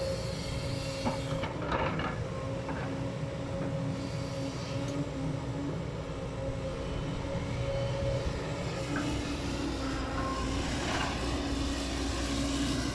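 JCB tracked excavator working: its diesel engine runs steadily under load with a held whine from the hydraulics, and a few knocks and scrapes as the bucket digs into the soil, about two seconds in and again near the end.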